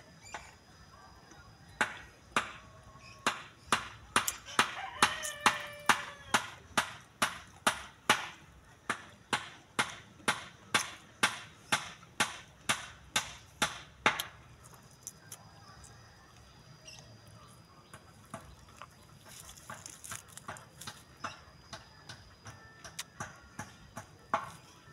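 Crunchy chewing of a slice of unripe green mango, a sharp crunch about twice a second for some twelve seconds. After that it drops to faint, scattered small clicks.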